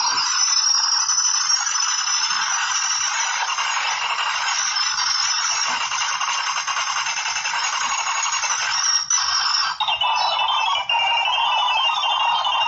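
Dense, continuous rattling of rapid clicks, with steady high tones running through it and a few brief breaks near the end.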